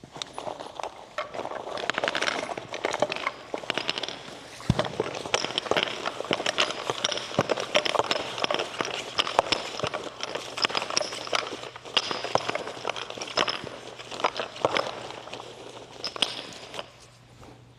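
A portable pickleball net's mesh being folded and rolled up by hand: continuous rustling with many small clicks and taps, easing off near the end.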